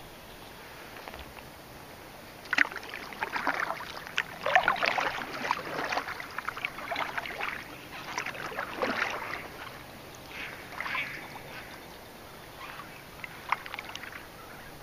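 Kayak paddle strokes in calm water: irregular splashes and drips as the blades dip and pull, from a few seconds in until about eleven seconds, then only a few faint drips.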